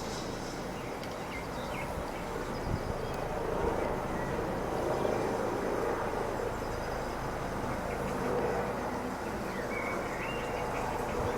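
Police helicopter overhead, its rotor and engine making a steady drone. A few faint bird chirps come in near the end.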